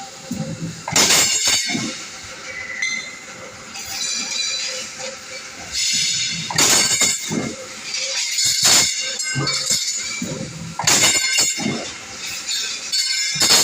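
Mechanical power press blanking sheet metal: repeated sharp metallic strikes, often in quick pairs, every two to five seconds, with clinking and rattling of metal between them.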